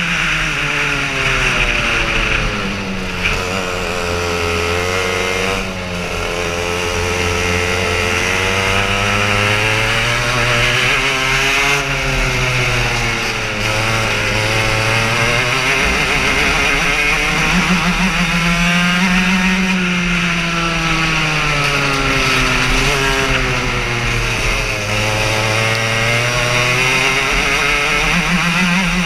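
Racing kart engine heard onboard at full race pace, its revs climbing along the straights and dropping away into the corners several times.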